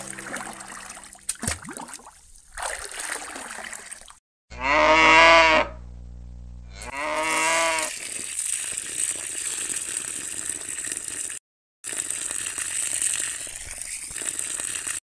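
A cow mooing twice, the first call longer and louder than the second. Then water from a small steel pot pours in a thin stream onto sand, a steady hiss.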